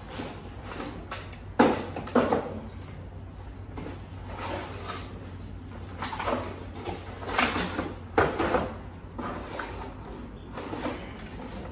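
Cardboard boxes being handled and opened: a string of irregular scrapes, rustles and knocks as the boxes slide on the table and the lid and flaps are pulled open.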